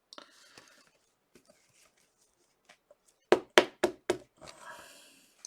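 Faint rustling of cards being handled, then four quick, sharp taps in a row a little past the middle.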